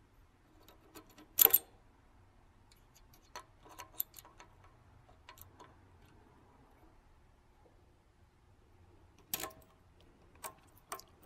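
Metal clicks and clinks as a drill press's return-spring cover and spring are fitted back onto the shaft. There is a sharp clack about one and a half seconds in, a few lighter clicks around three to five seconds, and a cluster of clicks near the end.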